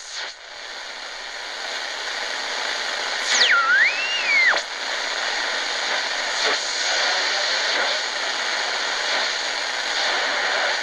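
Static hiss from the Tecsun GR-138's speaker as it is tuned between shortwave stations. About three seconds in, a whistling tone slides down, back up and down again before stopping, the beat whistle of a signal passing under the tuning.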